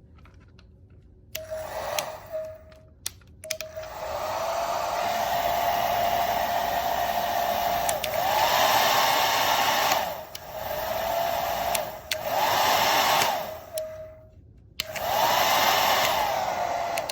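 Revlon infrared ionic hair dryer blowing, repeatedly cutting out and starting again, its motor pitch sliding down as it stops and rising as it comes back. This is the intermittent fault of a dryer that works only now and then.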